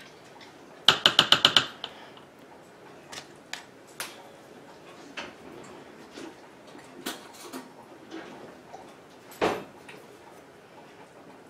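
A quick run of about eight sharp, ringing taps of a spatula knocked against the rim of an Instant Pot's stainless steel inner pot, about a second in. Scattered light clicks follow, then one more clink of a metal spoon against the pot near the end.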